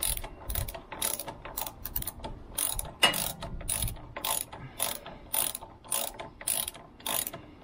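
Hand ratchet wrench clicking in short repeated strokes, about two a second, as it runs a bolt in.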